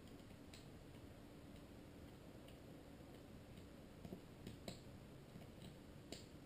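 Near silence with a few faint, scattered clicks of small plastic instrument-cluster parts being handled and fitted.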